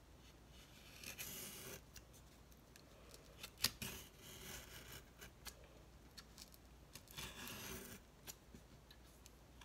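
X-Acto craft knife slicing through foam core along a ruler's edge: three drawn cutting strokes of about a second each, with a sharp click during the second one.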